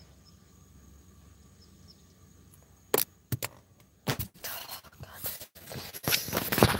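Low steady hum of a quiet car interior, then a sharp knock about three seconds in and a run of bumps and rubbing as the phone is grabbed and handled, fingers brushing over its microphone.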